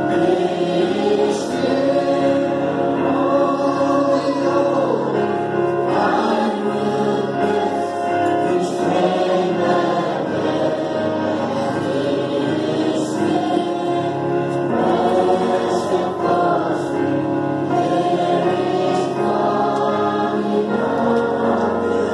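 Many voices singing a hymn together, long held notes at a steady level.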